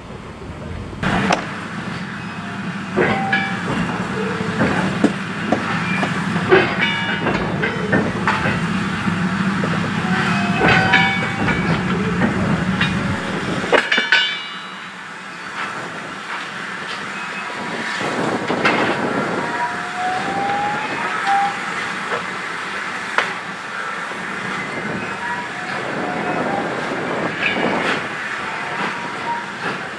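Steam-hauled goods train of wagons passing and drawing away, wheels clicking over rail joints and wagons clanking irregularly. A steady low rumble in the first half cuts off suddenly about halfway.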